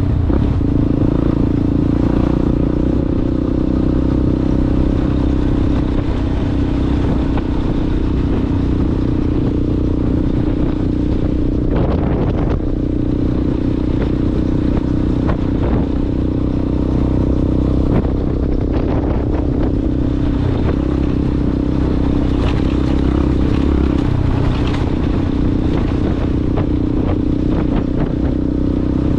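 Yamaha Ténéré motorcycle engine running steadily under way through an aftermarket Coyote exhaust, with scattered clicks and knocks from riding over rough ground.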